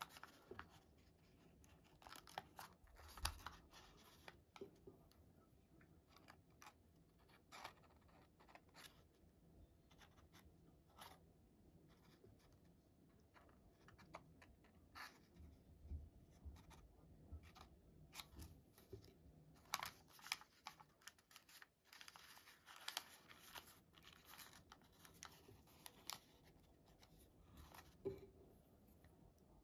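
Faint, irregular rustles and crisp clicks of origami paper being creased and twisted by hand, with the paper now and then pressed with a wooden toothpick.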